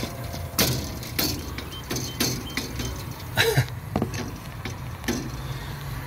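Copper refrigerant tubing being shifted by hand, the lines clicking and knocking against one another several times, over a steady low hum.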